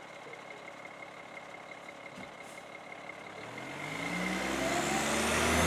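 Fire engine's diesel engine idling low, then revving up and accelerating with rising pitch over the last two seconds or so as the apparatus pulls away.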